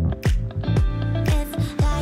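Upbeat background music with a steady beat, a deep kick drum about twice a second under bass and melody.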